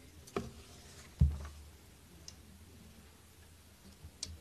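Handling noise at a lectern microphone as sheets of paper are moved: a few light clicks and one dull thump a little over a second in, over a faint steady low hum.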